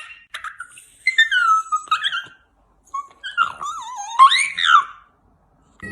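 A dog whining in high, wavering calls that slide up and down in pitch, in two stretches, the second starting about three seconds in.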